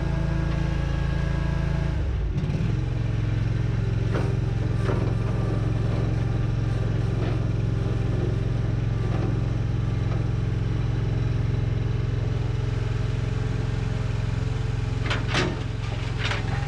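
OMC Mustang 330 skid steer engine running steadily, its note changing about two seconds in, with scattered knocks and a burst of clattering near the end.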